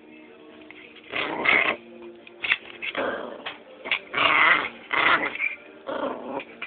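Maltese puppy growling in play, in about five rough bursts starting about a second in.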